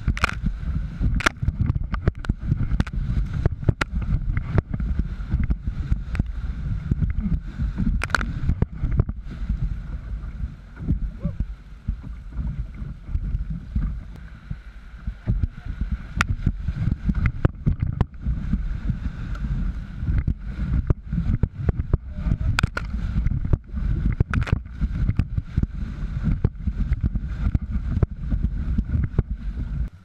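River rapids rushing around an open canoe being paddled through whitewater, with a heavy low rumble and frequent sharp knocks and splashes.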